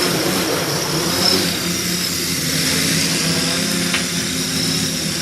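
3D-printed quadcopter's motors and propellers running steadily in flight, a continuous buzzing hum. The owner puts down one old motor's bad vibration as the cause of the drone circling instead of holding still.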